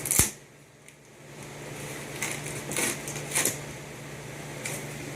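Cardboard box and packing being handled. There is a sharp bump right at the start, then scattered rustles and scrapes, loudest about two to three and a half seconds in, over a steady low hum.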